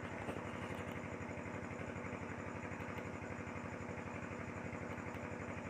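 Steady low mechanical hum with a fast, even pulse, like a small motor or engine running in the background.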